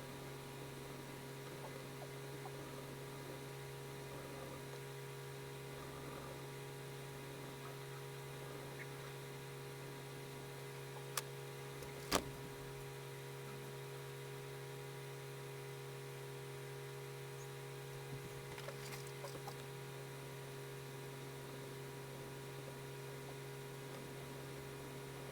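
Steady electrical mains hum with several steady tones under it, and faint, scattered scratching of a pencil on paper. A sharp click about eleven seconds in and a louder one a second later.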